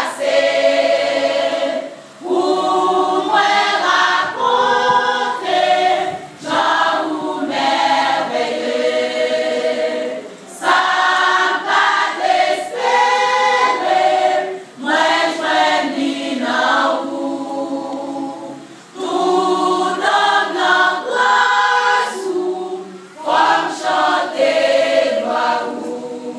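A women's church choir singing in unison and harmony, in phrases of about four seconds with short breaks between them.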